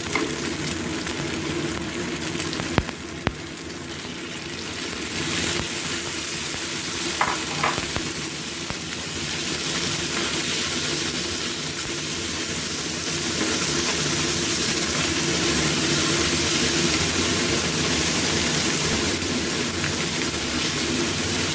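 Chicken, tofu and salted mustard greens sizzling in a hot wok as they are stirred and turned with a wooden spatula. A couple of sharp knocks a few seconds in, and the sizzling grows louder in the second half.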